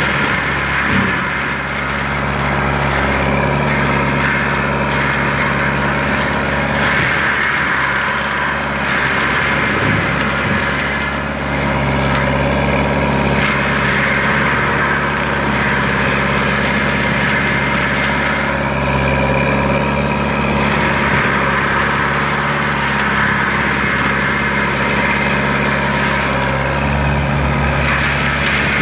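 Lamtrac LTR6125 tracked forestry mulcher running steadily, its diesel engine and Denis Cimaf 180D mulching head making a loud, even drone with only small dips in level.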